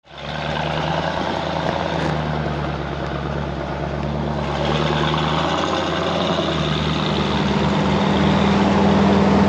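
A vehicle engine idling steadily. It fades in at the start and gets a little louder about halfway through.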